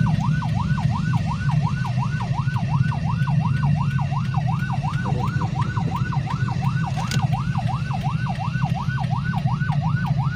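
Electronic vehicle siren in a fast yelp, its pitch sweeping up and down about three to four times a second without a break, heard from inside the cabin over the low rumble of the engine and road.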